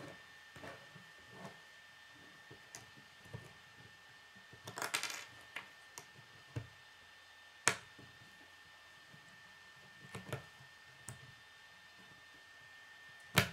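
Plastic K'nex rods and connectors clicking and rattling as they are handled and snapped together: scattered sharp clicks, a short rattle about five seconds in, and the loudest click near the end.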